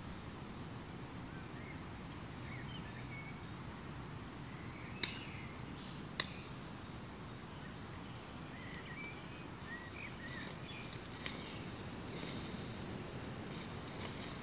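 Faint woodland ambience: scattered small birds chirping over a steady low background hiss. Two sharp clicks stand out about five and six seconds in, and light rustling of footsteps in dry leaf litter comes in near the end.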